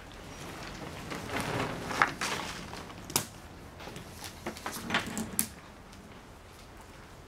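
Nylon ratchet-strap webbing being pulled off over a laminated timber boat keel, with a rasping slide through the first couple of seconds. Several sharp clacks follow, the loudest about two seconds in.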